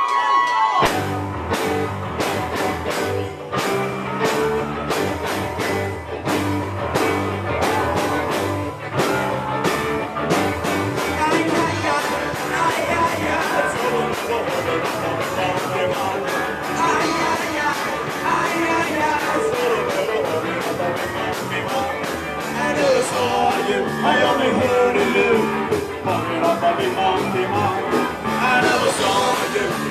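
Live rock band playing loudly: drums, bass and electric guitar kick in together about a second in, and a man sings over them.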